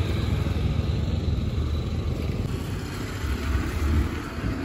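Low, uneven rumble of motor vehicle engines and street traffic, with no speech.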